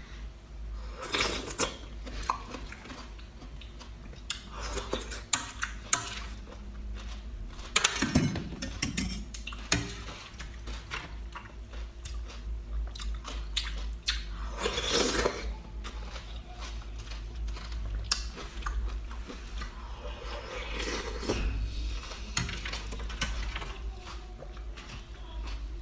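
Eating sounds of a seafood mukbang: utensils clicking against dishes, mixed with wet chewing and lip-smacking. Sharp clicks come scattered throughout, with louder wet bursts now and then.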